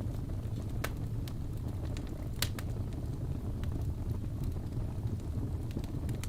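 Wood fire burning in a fireplace: a steady low rumble of flames with scattered sharp crackles and pops, the loudest about two and a half seconds in.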